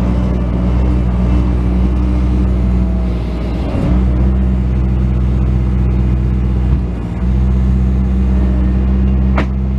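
Bobcat S185 skid steer's four-cylinder diesel engine running steadily, briefly dipping twice as the machine works, with a short sharp sound near the end.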